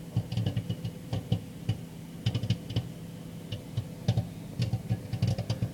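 Microwave popcorn popping in its bag, many irregular quick pops, over the steady hum of the running microwave oven. The popping is still fast, not yet slowing, so the corn is mid-cook.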